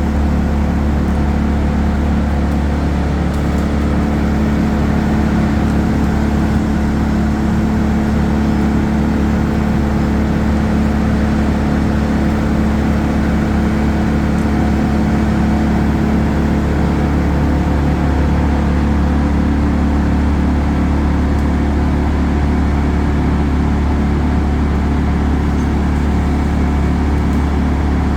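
Large engine running steadily at a constant speed, with a low, even hum.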